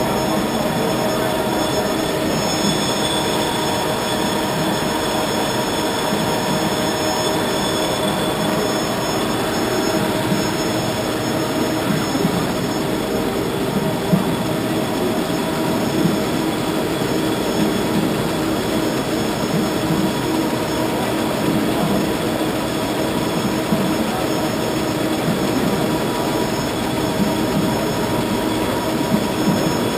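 Edelmann Star-Print 760 web offset printing press running at production speed, a loud, steady machine noise with several held whining tones over it.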